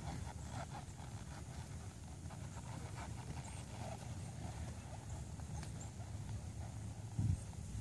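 A horse walking on soft dirt, its hoofbeats faint and irregular over a steady low rumble, with one louder thump near the end.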